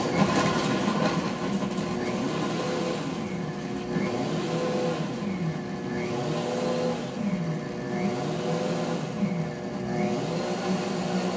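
WantJoin commercial blender, closed in its sound-guard cover, running its smoothie program on fruit and ice. The motor starts at once and keeps running, its pitch dipping and rising again every second or so as the program varies its speed.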